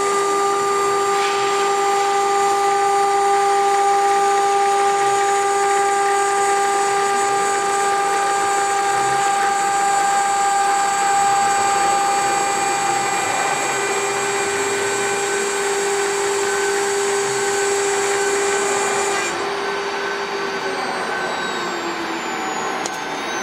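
Wintek WTM6090-W CNC router's spindle running at high speed, its end mill engraving an aluminium plate: a steady multi-tone whine over a cutting hiss. Near the end the high hiss drops out and the whine begins to fall in pitch.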